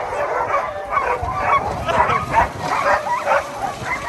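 A harnessed sled dog team barking and yipping, many dogs at once in a dense, overlapping din.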